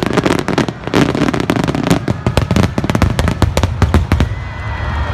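Fireworks finale barrage: a rapid, dense run of overlapping shell bursts and crackles over a low rumble, which stops about four seconds in.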